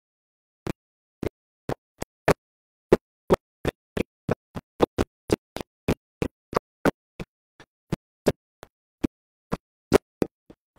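Glitching live-stream audio: a man's reading voice chopped into short fragments about three times a second, with dead silence in between, so no words come through.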